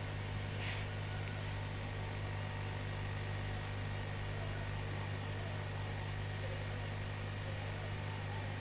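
Steady low hum of electrical bench equipment, with a faint high whine held over it and a soft tick about a second in.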